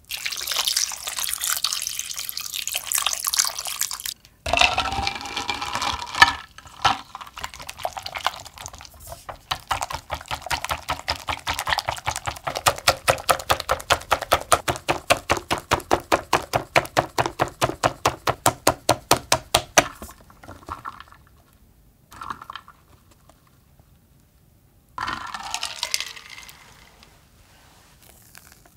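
Water poured from a bottle over ice cubes in a glass bowl for a few seconds. Then a hand wire whisk beats chocolate whipped cream in a glass bowl, in even strokes at about five a second that stop about 20 seconds in. A few light scrapes follow near the end.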